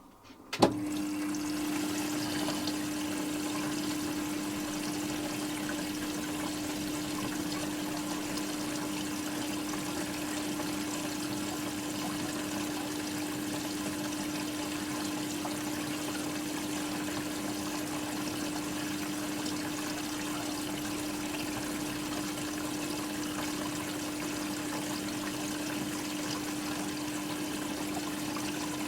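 Hoover Quattro washing machine filling with water: a click about half a second in, then water runs steadily into the machine with a steady hum underneath.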